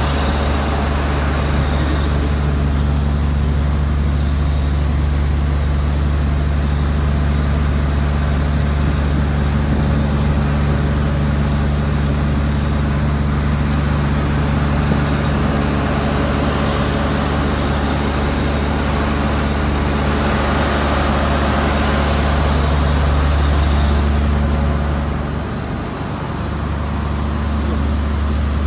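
Engine of construction-site plant running steadily: a loud, even low drone that dips briefly near the end and then returns.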